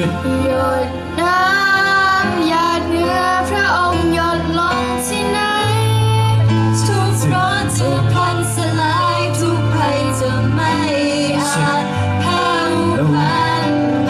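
A woman singing a song over instrumental accompaniment with sustained bass notes.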